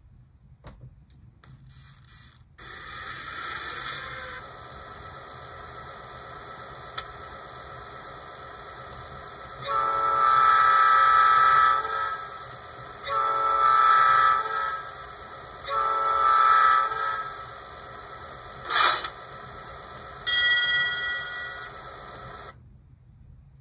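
Digitrax SDXH166D sound decoder playing its GP38 / EMD 645 diesel prime-mover sound through a small locomotive speaker. The engine sound comes in about two and a half seconds in, swells, then runs steadily. Five horn blasts follow, the fourth one short, and the sound cuts off shortly before the end.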